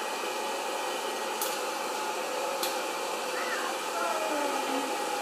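Hot-air popcorn popper's blower fan running steadily, with two brief sharp ticks, one about a second and a half in and one near the middle.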